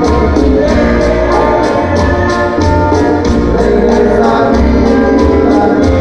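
Loud dance music with a sung vocal over pitched instruments and a steady percussion beat ticking about three to four times a second.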